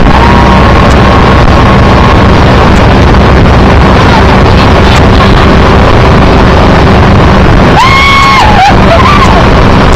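Motorboat running at speed with heavy wind buffeting the microphone, loud and constant. About eight seconds in, a person gives a brief high shout.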